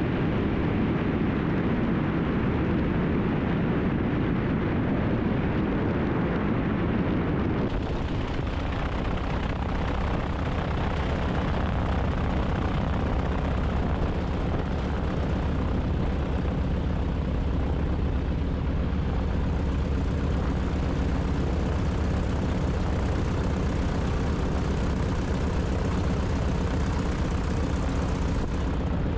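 Beech 18's twin radial engines running steadily with a deep drone. About eight seconds in the sound shifts to a lower, steadier hum.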